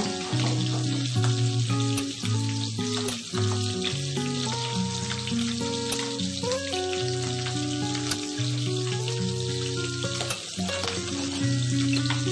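Milkfish steaks sizzling and crackling in hot oil in a frying pan. Background music of held, stepping notes plays over the frying.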